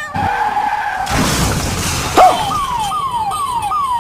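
Edited-in comic sound effects: a held tone, then a noisy whoosh, a sharp hit about two seconds in (the loudest moment), and then a siren-like tone that falls in pitch over and over, about three sweeps a second.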